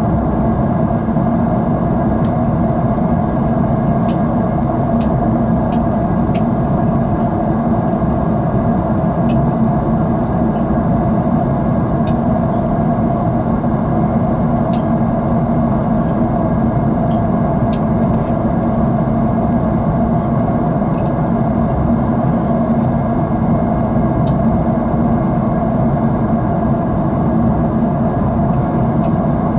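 Steady, even jet engine and airflow noise heard inside an airliner cabin in flight, an unchanging low drone.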